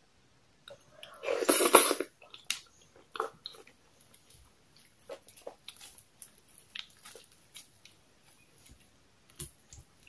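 A person eating soft poundo yam dipped in slimy okra soup: a loud mouthful taken about a second in, then chewing with scattered mouth clicks.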